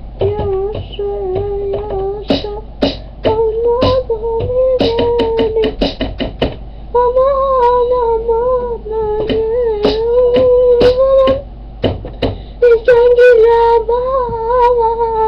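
Wordless vocalising: a voice holding long sung notes with a wavering pitch, stopping twice, mixed with many sharp clicks.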